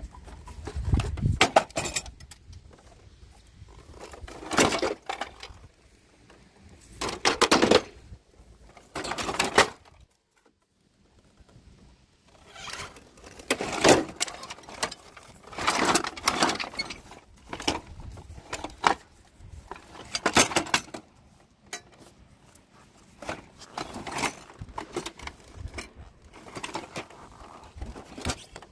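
Scrap power tools and metal parts clattering and knocking as they are handled and shifted in a pile, in irregular bursts of rattles and clunks with a short lull about ten seconds in.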